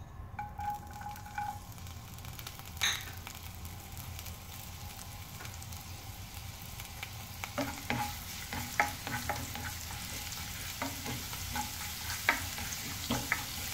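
Chopped ginger sizzling in hot coconut oil in a nonstick wok. From about halfway through, a spatula stirs it, with repeated sharp clicks and scrapes against the pan.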